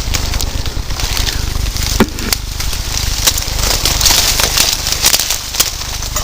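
Irregular crackling and snapping of dry leaves and twigs underfoot, over a steady low rumble.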